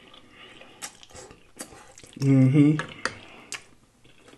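Close-up eating sounds of a mouthful of spaghetti: soft slurping and chewing with a few sharp clicks. There is a short hummed voice sound about two seconds in.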